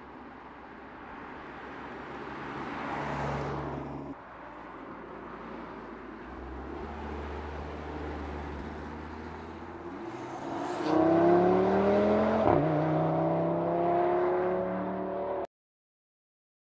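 Audi TT RS Roadster's turbocharged five-cylinder engine under hard acceleration: the engine sound swells and drops off sharply about four seconds in, runs steady, then climbs loudly in pitch from about eleven seconds, with a quick upshift a little later before rising again. The sound cuts off abruptly near the end.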